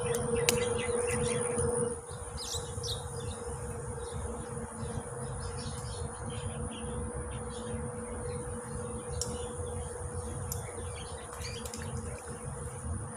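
Steady insect drone with a high whine, dropping in level about two seconds in, with scattered short bird chirps and a low rumble underneath.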